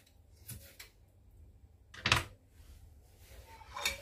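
A few sharp knocks of a kitchen knife on a wooden cutting board among diced onion, the loudest about two seconds in and another near the end.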